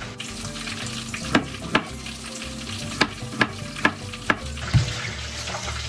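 Chef's knife cutting garlic cloves on a plastic cutting board: about seven sharp knife strikes, unevenly spaced, over the steady sizzle of chicken frying in oil.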